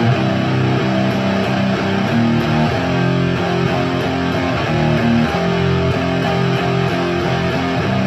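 Electric guitar with Bare Knuckle Mississippi Queen P90 pickups, played through a Diezel Hagen tube amp head with JJ KT77 power tubes into a Marshall Mode Four cabinet with Celestion G12-K100 speakers: a steady run of chords and notes that changes every fraction of a second.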